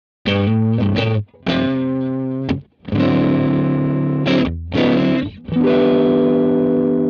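Electric guitar played through a Soviet Sound Bort 391 valve amp head with a kenotron (valve rectifier), overdriven: a few short chord stabs with gaps, then chords held and left to ring out.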